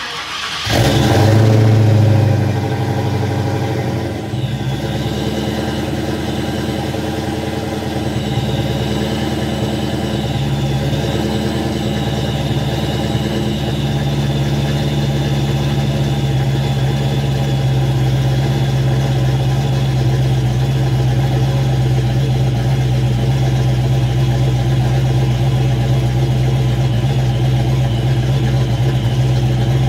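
Fox-body Ford Mustang engine started through freshly fitted Jones Full Boar 3-inch offset mufflers. It catches within the first second and flares loudly for about two seconds, then settles a few seconds in to a steady idle to warm up.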